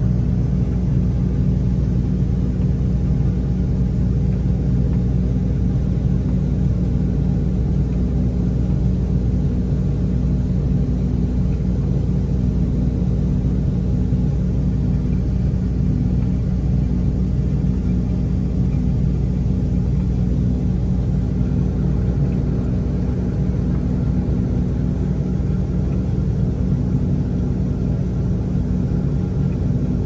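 Combine running steadily with its grain unloading auger engaged, a constant low drone of engine and auger heard from inside the cab while shelled corn is unloaded.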